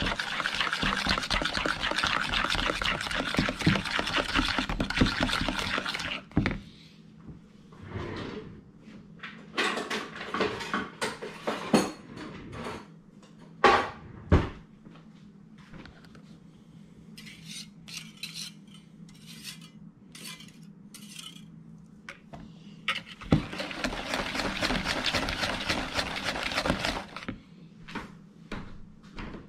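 A metal fork stirring and scraping thick cream cheese maple frosting in a bowl, with fast continuous scraping for about six seconds. Then come scattered clinks and knocks of the utensil against the bowl, and another spell of brisk stirring near the end.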